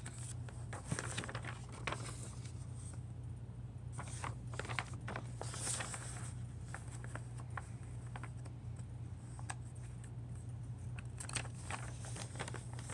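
Quiet room with a steady low hum from the running ceiling fan, and scattered faint clicks and rustles of things being handled.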